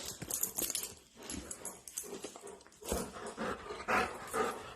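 A large dog making short, irregular breathing and snuffling noises, restless and eager to set off on a walk.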